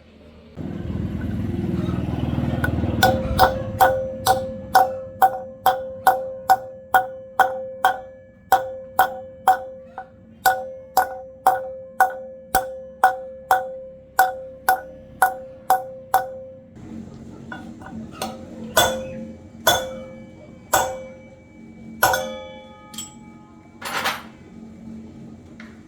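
Hammer blows on metal, about two and a half a second, each ringing at the same pitch, after a few seconds of low rumbling. Toward the end come a handful of sparser clinks ringing at different pitches.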